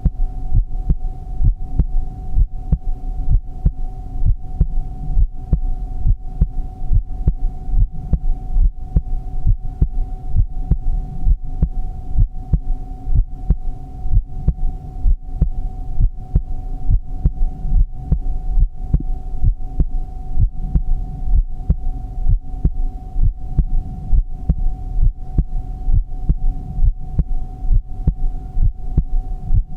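Human heartbeat: a steady, even rhythm of low, dull thumps, with a steady hum underneath.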